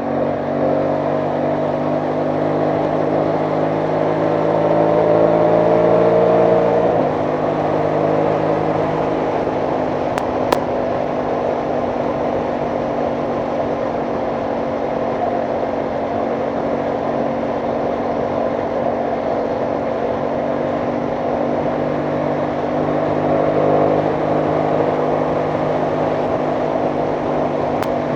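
Aprilia Tuono 660 Factory's parallel-twin engine pulling with rising revs for the first several seconds. The revs drop abruptly about seven seconds in, then the engine cruises at steady revs with a brief rise near the end, under constant wind rush.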